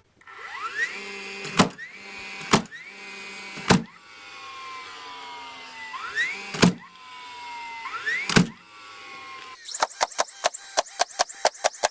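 Nail gun driving nails into pallet boards: five single shots about one to two seconds apart, most with a short rising whine just before the shot. Near the end comes a quick run of shots, about four a second.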